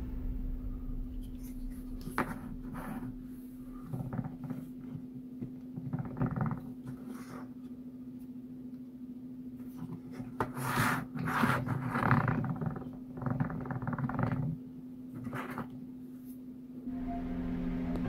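A finished laser-cut wooden road roller model being handled and moved on a cutting mat: scattered light clicks and short scraping rustles of thin wooden parts, busiest about ten to twelve seconds in, over a steady low hum.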